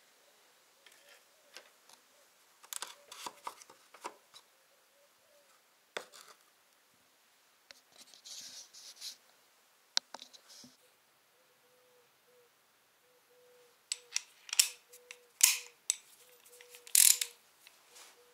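Hands working in a car's engine bay: a rag rustling and scattered sharp clicks and knocks of parts and tools being handled, with the loudest clicks coming in a cluster near the end.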